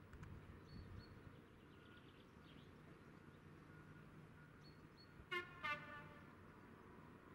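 Two short toots of a diesel locomotive's horn from an approaching train in the distance, about five seconds in, over faint bird chirps and a low distant rumble.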